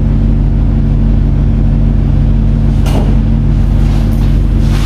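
Steady low motor drone, with two brief noises, one about three seconds in and another near the end.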